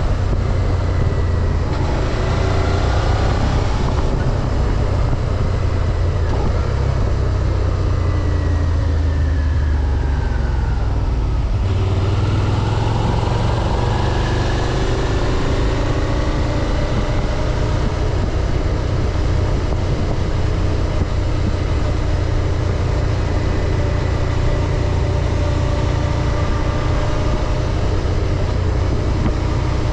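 2024 Suzuki SV650's 645 cc V-twin engine, A2-restricted and on its stock exhaust, under way with heavy low wind rumble: the engine note falls as the bike slows until about twelve seconds in, then rises again as it accelerates and settles into a steady cruise.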